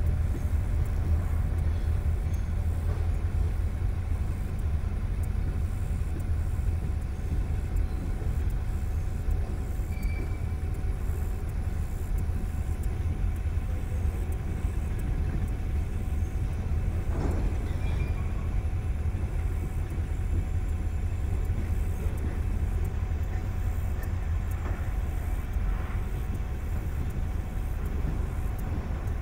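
Steady low rumble of a car moving slowly, heard from inside the car, with one brief knock about seventeen seconds in.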